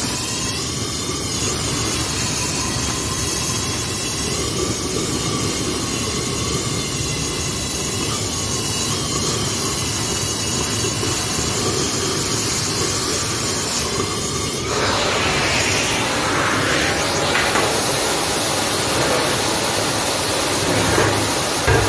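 Oxy-fuel cutting torch cutting through heavy-wall steel pipe: a steady jet roar and hiss with a wavering whistle in it. About two-thirds of the way through the whistle stops suddenly and the sound turns to a rougher, broader hiss, with a few low knocks of steel being handled near the end.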